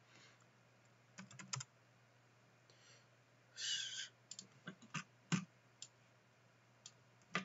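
Faint, scattered clicks of a computer keyboard and mouse in short clusters, with a brief soft rustle a little before the middle.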